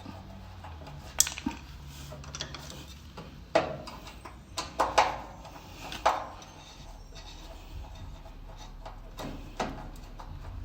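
Scattered metallic clinks and knocks of a screwdriver and metal parts being handled while a screw is loosened on the powder shaker machine's frame, about seven irregular strikes over a faint low hum.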